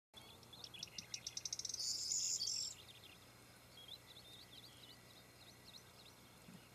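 Small bird singing: a run of high ticks that speeds up into a short, loud buzzy jangle, followed by scattered short high chirps.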